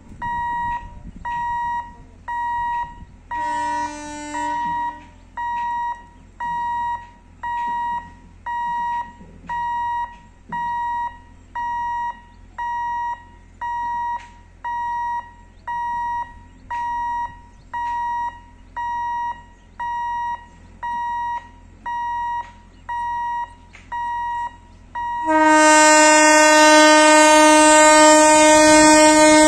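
Level-crossing warning alarm beeping steadily, about once a second, with a short horn blast about four seconds in. Near the end, the horn of an approaching EMU local train sounds loud and long, drowning out the beeping.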